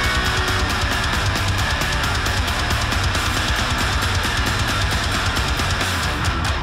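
Heavy rock music with guitar and a steady, driving drum beat.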